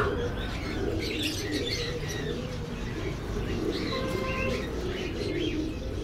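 Caged birds calling together: pigeons cooing underneath, with small finches chirping and a few short whistled notes over the top.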